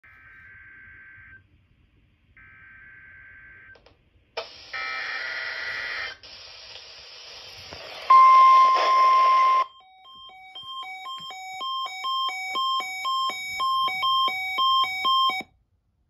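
NOAA Weather Radio alert received on a weather-alert radio. It opens with two short bursts of digital SAME header tones, then a noisy stretch. Then comes the loud steady 1050 Hz warning alarm tone, which after about a second and a half gives way to the receiver's own alert beeps. These alternate rapidly between two pitches, grow steadily louder, and stop abruptly near the end.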